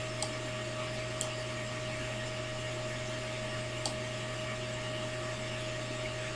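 Steady electrical hum and hiss with a faint steady whine, and three faint clicks of a computer mouse.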